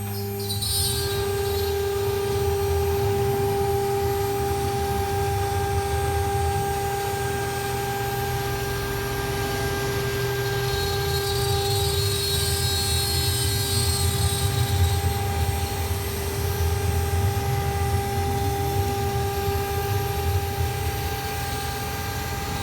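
CNC router running, its spindle giving a steady high whine over a low motor hum. A hiss rises and falls between about eleven and fifteen seconds in.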